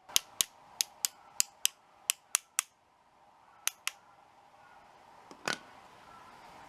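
Sharp metal-on-metal taps, about a dozen in quick runs of two or three, as a foot peg's pin is forced into its mount, with one heavier knock about five seconds in.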